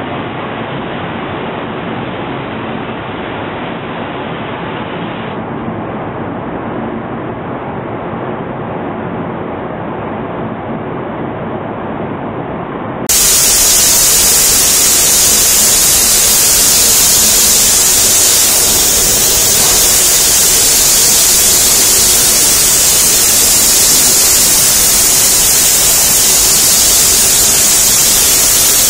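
Steady noise of paint spray booth machinery. About halfway through it gives way to a louder, steady hiss from a spray gun mounted on a painting robot's arm, spraying paint.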